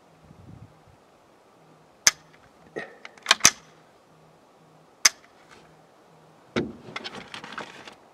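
Several sharp clicks and knocks: one about two seconds in, a quick pair a second later and another near the middle. They are followed by a couple of seconds of rustling and crackling near the end.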